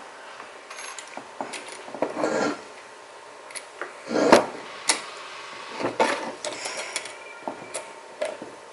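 Shifter parts being handled and fitted together by hand: scattered light clicks and short scrapes, with one sharper knock about four seconds in.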